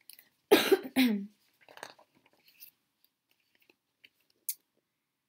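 A woman coughs once, sharply, about half a second in, the cough ending in a short voiced sound that drops in pitch. Faint rustles and a small click follow as the pages of a picture book are turned.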